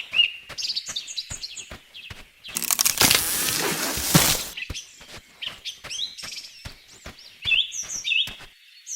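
Small birds chirping again and again over a run of sharp clicks and taps. A dense burst of noise lasting about two seconds comes early in the middle.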